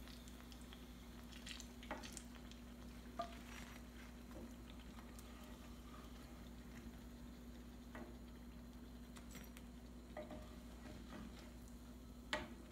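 Faint clicks and scrapes of a steel ladle against a wok as fried eggplant bajji slices are lifted out of the oil, over a steady low hum; the loudest click comes near the end.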